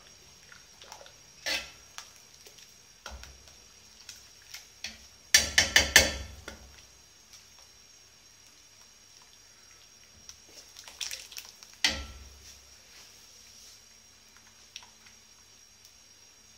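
Metal ladle clinking and scraping against the side of a large aluminium pot as thick yogurt soup is scooped up and poured back in. A quick run of sharp clinks comes about five to six seconds in, which is the loudest moment, and another comes around eleven to twelve seconds.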